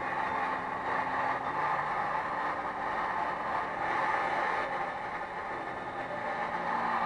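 Heat gun blowing steadily while it shrinks heat-shrink tubing onto a metal detector's shaft: an even fan whoosh, dipping slightly about five seconds in.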